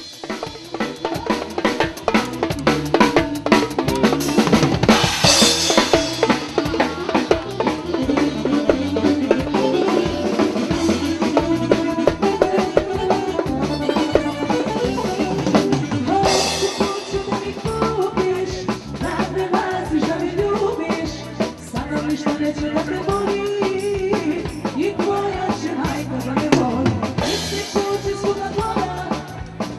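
Live band music: a drum kit keeps a steady beat under a keyboard melody, with cymbal crashes about five seconds in, around sixteen seconds, and near the end.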